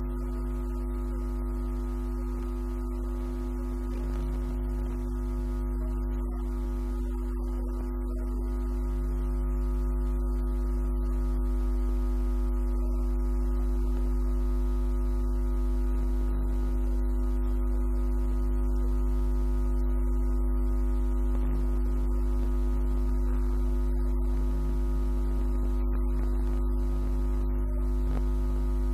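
A recorded drone played back over loudspeakers: several steady held tones over a deep low hum, without change in pitch, growing slightly louder over the first ten seconds or so.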